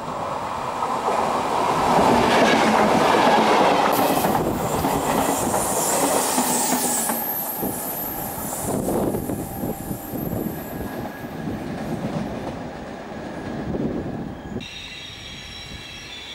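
Trenitalia electric trains running on curved station track: wheels clacking over rail joints, and steel wheels squealing on the curve, loudest for a few seconds near the start. The sound changes abruptly a few times.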